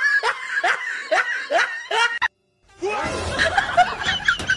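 Laughter in a quick run of short "ha" bursts, about two or three a second, stopping abruptly about two seconds in; after a brief gap a different, noisier mix of sound with music begins.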